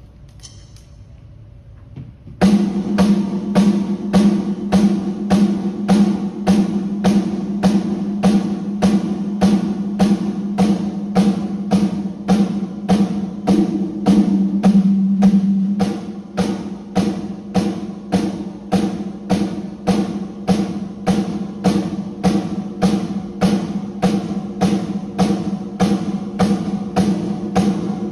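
Snare drum struck alone in a steady run of single hits, about two a second, each ringing with a tone near 200 Hz. The hits start about two seconds in and are an isolated drum check for the mixing engineer.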